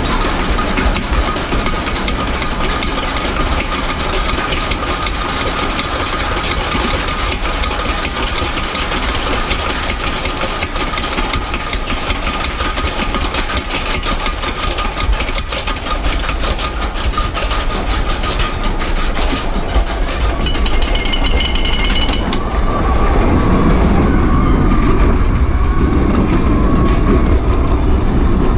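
Suspended roller coaster train running along its steel track: a steady rumble and clatter of the wheels with a constant whine, a brief high squeal about twenty seconds in, then a louder, heavier rumble towards the end.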